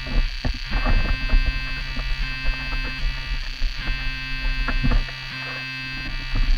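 Background music of held, buzzing synth-like chords that change every second or so, over an uneven low rumble and knocks from water and handling noise picked up by a camera on the bow of a sea kayak being launched into shallow water.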